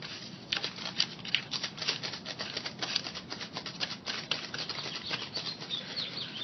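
A small plastic spoon stirring and scraping candy rice powder and water in a compartment of a plastic Popin' Cookin' kit tray: quick, irregular clicky scrapes, several a second.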